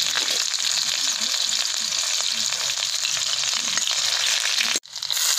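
Sliced onions sizzling and frying in hot oil in a kadai while a ladle stirs them. The sizzle cuts out suddenly for a moment near the end.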